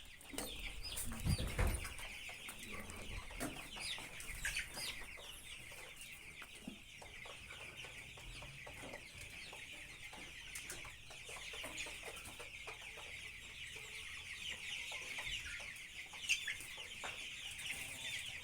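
A large flock of young chickens peeping continuously, many short, high calls overlapping. There is a brief low thud about a second and a half in.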